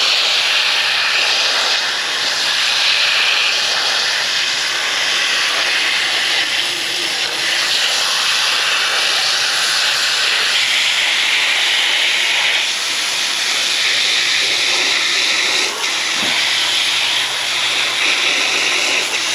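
A hose nozzle on a high-pressure jet setting sprays water into the outdoor condenser coil of a heat pump, a loud, steady hiss, to wash debris out of the fins. The spray cuts off suddenly at the very end.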